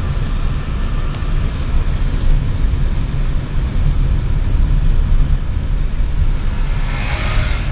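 Car driving, a steady low rumble of engine and road noise, with a brief hissing swell near the end.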